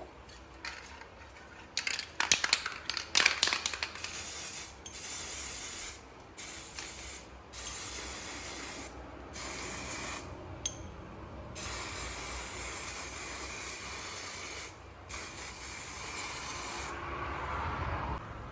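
Pressurised spray hissing in repeated bursts of one to three seconds with short breaks between them, after a quick cluster of sharp clicks and rattles about two seconds in.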